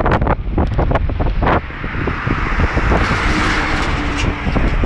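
Wind rushing and buffeting on the microphone of a phone filmed from a moving vehicle, over a steady rumble of road and engine noise.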